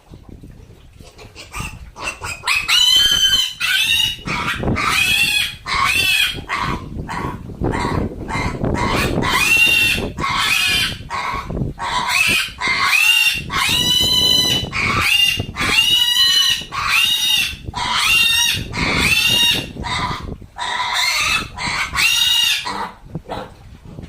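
A pig squealing over and over in loud, high-pitched squeals, about one a second, starting a couple of seconds in.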